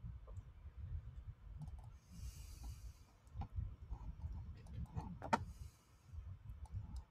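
Faint computer mouse clicks, a sharper one about five seconds in, over a low rumble of room and microphone noise, with a short soft hiss about two seconds in.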